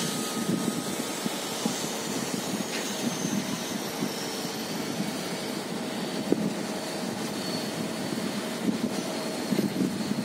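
Heavy plant on a sheet-piling site: the road-rail excavator with its piling rig runs with a steady rumble, with a few short knocks in it, the sharpest about six seconds in.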